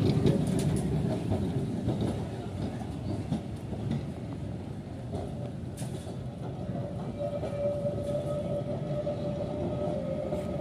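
Kolkata tram car rolling away along its street tracks, its low rumble fading over the first few seconds to a steady background, with a few faint clicks. A steady thin whine joins about halfway through.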